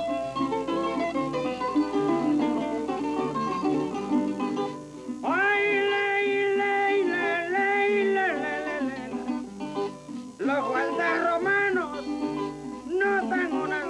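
Music: plucked strings and guitar playing a busy accompaniment. A voice sings long, drawn-out notes from about five seconds in, and again from about ten and a half seconds in.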